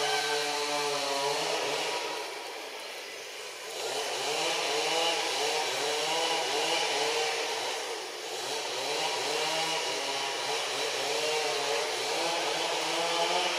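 A small engine running off-screen, a buzz that wavers in pitch as its speed rises and falls. It eases off twice, about two seconds in and again about eight seconds in.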